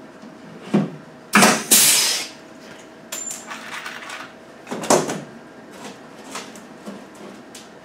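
Air-powered pop rivet gun setting a 3/16 pop rivet: a sharp snap as the rivet pops, followed by a hiss of air lasting about half a second. A second sharp clack comes about five seconds in, among light clicks of the tool being handled.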